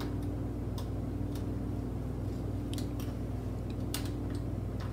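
Steady low electrical hum of room tone, with a few faint, scattered clicks.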